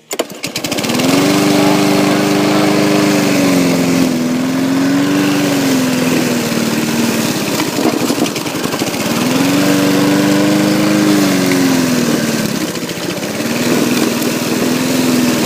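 Petrol lawnmower engine pull-started, catching within the first half-second and then running loudly, its speed climbing and sagging slowly twice as it revs and falls back.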